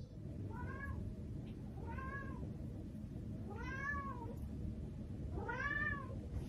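A domestic cat meowing four times, each call rising and then falling in pitch, the last two longer and louder, while it carries a large plush toy in its mouth.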